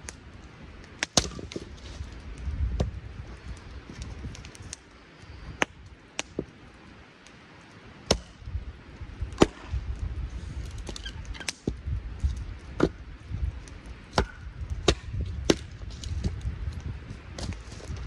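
Small axe chopping and splitting firewood on a chopping block: about a dozen sharp chops, irregularly spaced one to two seconds apart.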